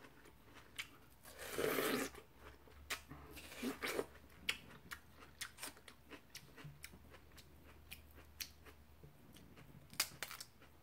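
Close-miked biting and wet chewing of fresh watermelon: crisp crunches and juicy clicks, with louder bites about two and four seconds in.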